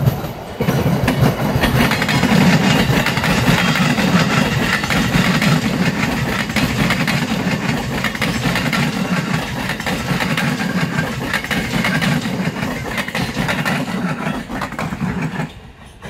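An electric commuter train (KRL) running past at close range: steady running noise with wheels clattering over the rail joints. It cuts off suddenly near the end.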